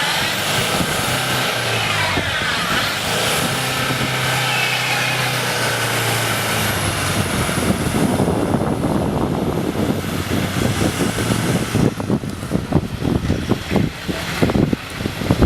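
A car engine revving as the car tries to get free from snow, its pitch rising and falling. In the second half it gives way to irregular rough noise close to the microphone.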